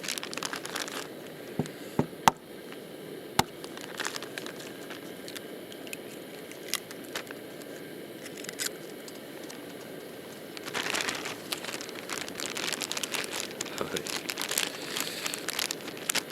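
Wood campfire crackling, with sharp pops and snaps scattered throughout and a few loud snaps in the first few seconds.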